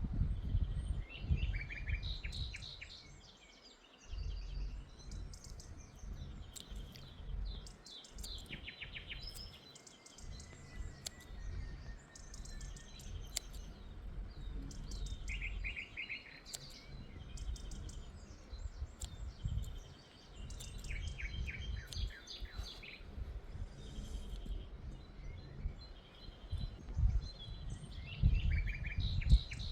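Several small birds chirping and trilling, in repeated short high phrases throughout, over a low, uneven rumble.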